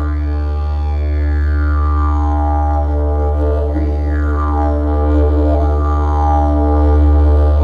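Background music: a steady low drone with bright overtones that sweep downward every second or two.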